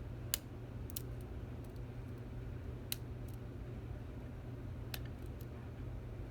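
A lock pick and tension wrench working the pins inside a Stanley 24/7 padlock: a handful of small, sharp metallic clicks, scattered a second or two apart.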